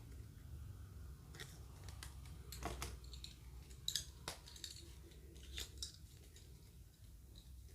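Hands handling small plastic toy pieces and packaging: scattered light clicks and snaps, a few sharper ones a little past halfway, over a steady low hum.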